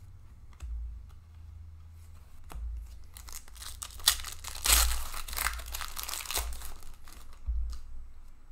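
Foil wrapper of an Upper Deck hockey card pack being torn open and crinkled by hand, loudest a little past the middle. A few light taps of cards being handled come before it.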